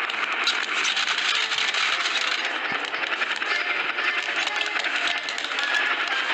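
Busy clattering of small objects: a dense stream of clicks, rattles and clinks with short scraping sounds.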